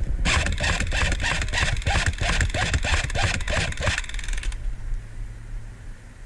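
Airsoft A&K M249 electric light machine gun firing one long full-auto burst, a fast, even rattle of shots that stops about four seconds in.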